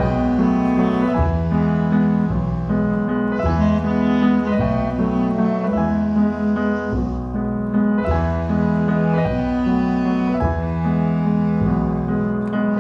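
Instrumental background music: held chords over low notes that change at an even pace about every second and a half.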